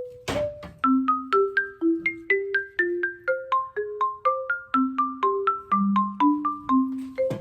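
Background music: a light mallet-percussion tune like a marimba or xylophone, notes struck about four times a second with a low part and a higher melody, and a short noisy hit just after the start.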